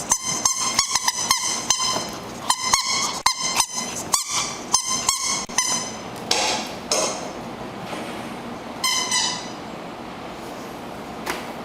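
Squeaky pig toy squeaking over and over in quick, high-pitched squeaks as a dog chews it, then only a few single squeaks after about six seconds.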